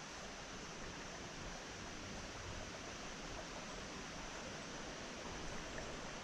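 Creek water flowing over rocks: a steady, even rushing that doesn't change.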